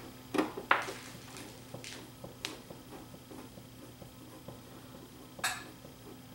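A handful of short, sharp clicks and taps from a screwdriver driving screws into the side of a metal hi-fi equipment case, over a faint steady hum.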